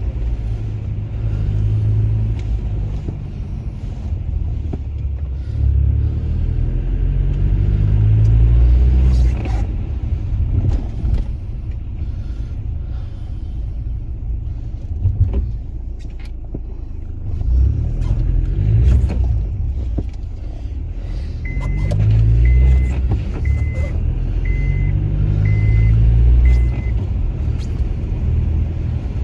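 Low rumble of a car driving, swelling and easing. In the second half, six short high-pitched beeps sound about a second apart.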